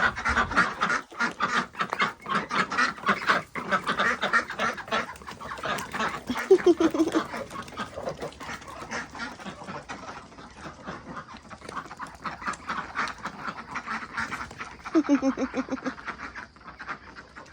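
A flock of domestic ducks quacking continuously, many short calls overlapping in a busy chatter.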